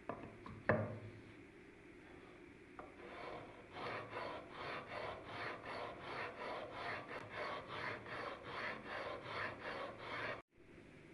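Abrasive rubbing strokes worked back and forth by hand, evenly at about three a second, after a couple of light knocks at the start; the strokes stop abruptly near the end.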